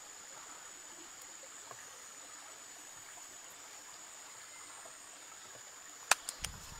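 Steady outdoor hiss with a thin, high whine over it. About six seconds in, a sharp wooden knock and then two lighter clicks as green sticks are laid across a bed of wood embers.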